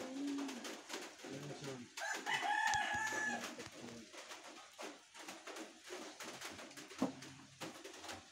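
A loud bird call about two seconds in, lasting about a second and a half, with low cooing around it.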